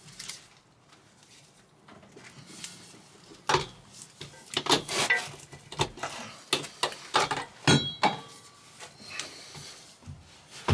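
Irregular metal clinks and knocks as a BMW E46's two-piece propshaft is worked by hand at its centre bearing, the front section sliding into the rear, with one brief metallic ring in the middle and a heavier knock at the end.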